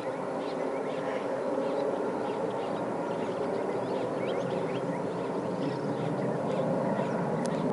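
Steady jet roar of the Gulfstream II's two Rolls-Royce Spey turbofans at takeoff power as the jet climbs away, growing slightly louder near the end.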